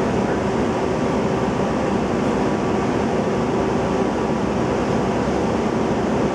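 Steady drone inside the cabin of an Orion VII Next Generation CNG transit bus: engine and air-conditioning hum, with no changes or distinct events.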